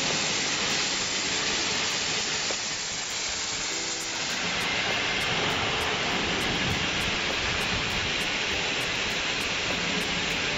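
CNC plasma cutting torch hissing steadily as it cuts through a large steel pipe.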